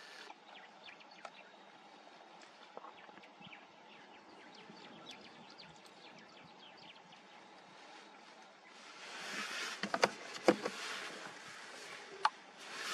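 Faint open-air ambience with scattered small high chirps and ticks. About nine seconds in, a rushing noise swells, and several sharp knocks come through it; the loudest are around ten seconds in and one is just after twelve seconds.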